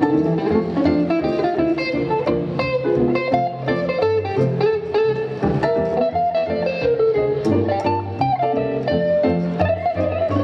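Live swing/rockabilly band playing an instrumental break with no singing: archtop electric guitar, upright double bass and upright piano.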